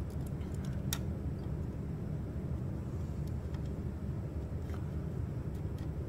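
Steady low background rumble during hand soldering, with a few faint clicks and one sharper click about a second in.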